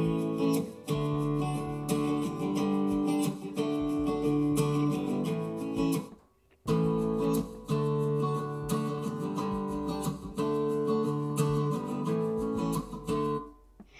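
Guitar music playing through the built-in speakers of a 2020 27-inch iMac at full volume. After a short break about six seconds in, the same passage plays again through a 2019 iMac's speakers.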